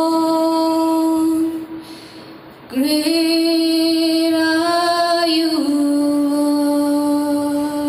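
A woman singing long held notes of a worship song. One note ends after about a second and a half, then after a short pause a note slides up into place, holds, and steps down to a lower note that is held to the end.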